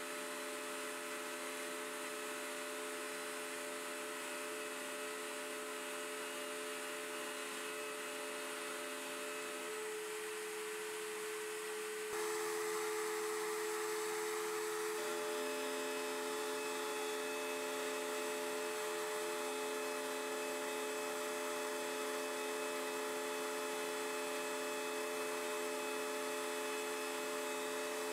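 Table-mounted router running with a steady whine while its bearing-guided flush-trim bit trims the edge of a melamine-faced MDF disc being turned against it. About twelve seconds in the sound changes abruptly and becomes slightly louder.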